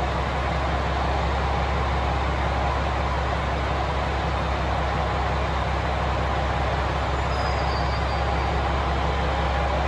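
A 521-series electric train pulling slowly into the station: a steady low rumble and hum with no sharp sounds.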